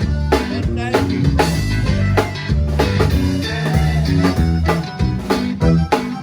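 Live conjunto band playing an instrumental passage: strummed guitar-type strings over a bass line and a drum kit keeping a steady beat.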